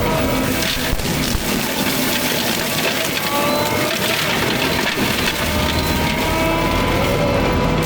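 A Takeuchi machine running a Fecon forestry mulcher head, engine and rotor running hard under load with the pitch drifting slowly up and down as it chews through brush and wood.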